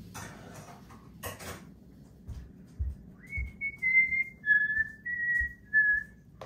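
A person whistling a short tune of a few clear, high notes that step down and back up, lasting about three seconds. Before it come a couple of brief rustles and a few soft knocks.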